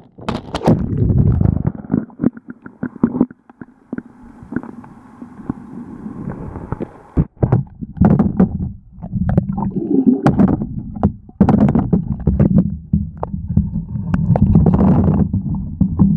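Handling noise from a phone camera being moved about and fumbled: irregular low rumbling with scrapes, clicks and knocks as its microphone is rubbed and covered.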